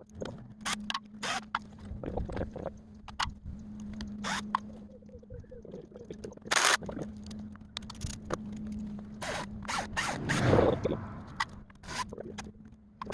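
Hand tools working metal engine parts: irregular sharp clicks and scrapes, with a longer scraping rush about ten seconds in, over a steady low hum.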